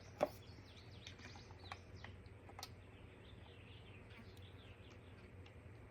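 Faint bird chirping and twittering in the background, with a sharp click just after the start and a few lighter clicks over the next two seconds from the plastic water tank of a steam straightener brush being handled, over a low steady hum.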